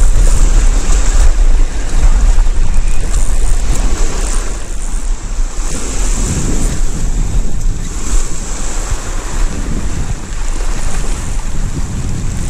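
Small waves washing over shingle and rocks at the water's edge, with wind buffeting the microphone.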